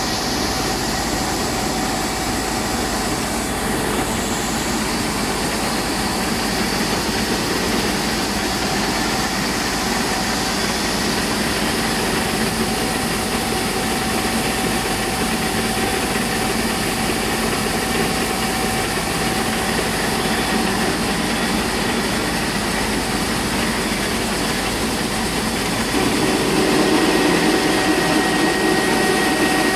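Rice mill plant machinery running steadily: a continuous mechanical rush and whir with a few faint steady tones, growing slightly louder near the end.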